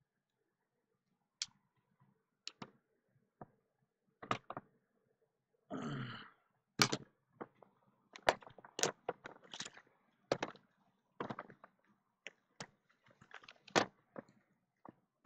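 Cellophane shrink-wrap on sealed trading-card boxes crinkling and clicking as the boxes are handled, in sharp irregular crackles that grow denser in the second half, with one longer rasping sound about six seconds in.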